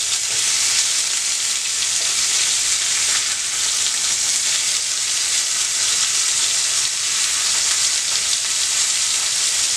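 Beef burger patties sizzling steadily in their fat in a square frying pan as they are turned over with a slotted spatula.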